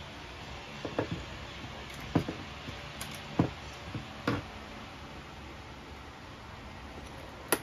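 Light knocks and clunks as the turbine cabinet's sheet-metal end panel is handled and set against the cabinet, about five over the first four and a half seconds, then one sharp click near the end.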